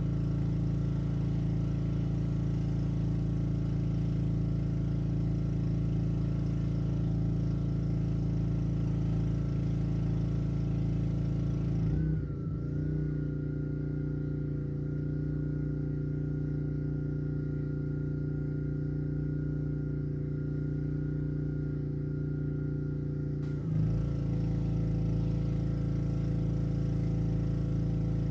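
Black Max pressure washer's Honda engine running steadily. A little under halfway through, its note changes sharply for about eleven seconds, with less hiss and a steady high whine, then returns to the earlier sound.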